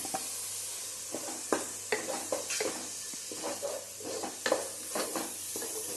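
Ginger-garlic paste sizzling in hot oil in a pan, stirred with a utensil that scrapes and knocks against the pan in irregular strokes about every half second.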